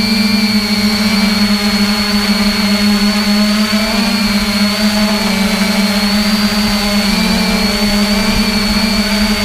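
Electric motors and propellers of an FPV radio-controlled model aircraft, a loud steady buzzing whine with a high-pitched motor tone above it; the pitch dips slightly a couple of times as the throttle eases.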